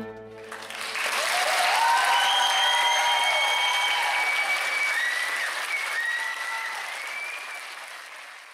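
Audience applauding with some cheers and whistles at the end of a stage dance number. The applause starts about a second in, right as the music's last chord dies away, then slowly fades down toward the end.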